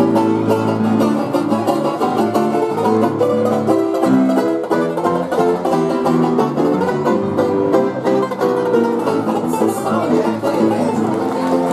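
A banjo played live: a quick, steady run of picked notes and chords in an upbeat bluegrass style.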